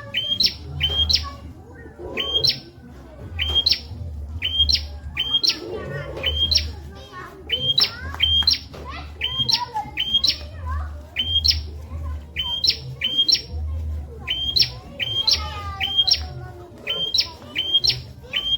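Prenjak (prinia) calling over and over: short, sharp, rising chirps, often in quick pairs, in a steady run, with softer twittering between them and a low rumble underneath.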